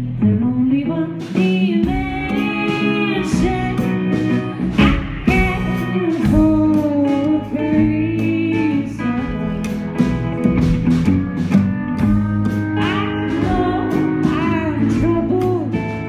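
Live band music: a woman singing into a microphone while plucking an upright double bass, with a hollow-body electric guitar picking alongside.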